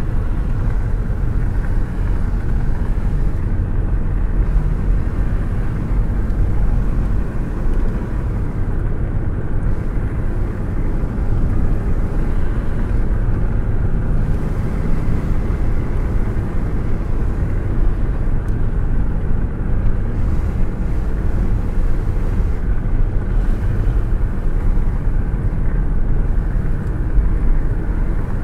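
Steady deep rumble of a car on the move: engine and road noise.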